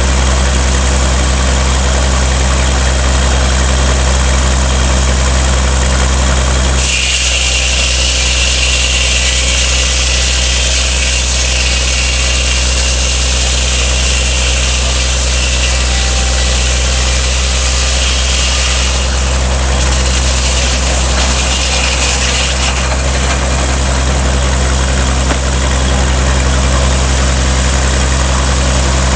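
Sawmill running, its power unit humming steadily. From about seven seconds in to about twenty-three seconds, the saw blade cuts through a log, adding a high-pitched whine and hiss over the hum.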